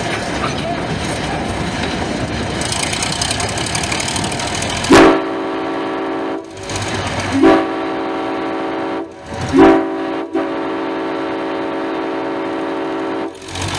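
Passenger train running along the track, then a diesel locomotive's air horn sounds three blasts starting about five seconds in: two shorter ones and a last, longer one.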